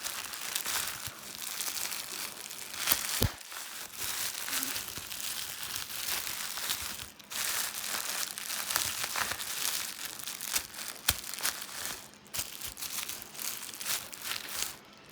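Plastic bubble wrap being squeezed and twisted, a dense crackling run of small pops with a few louder single pops.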